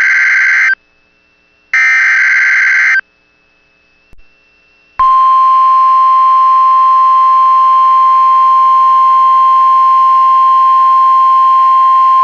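Two Emergency Alert System SAME header data bursts, each about a second of buzzy digital warble. After a short pause, about five seconds in, the steady single-pitch NOAA Weather Radio warning alarm tone (1050 Hz) starts and holds.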